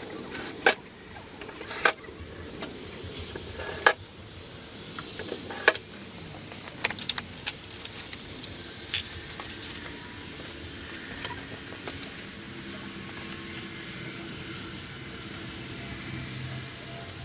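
Scattered sharp clicks and knocks of hard objects being handled: four louder ones in the first six seconds, then lighter ticks.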